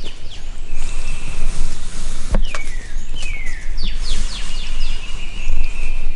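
Birds singing and calling, with repeated falling whistled notes and long held high notes, over a steady low rumble. A single sharp click about two and a half seconds in.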